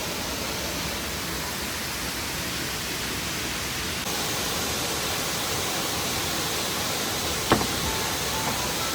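A large waterfall's steady rushing roar of falling water, stepping up slightly about four seconds in. A single sharp click comes about seven and a half seconds in.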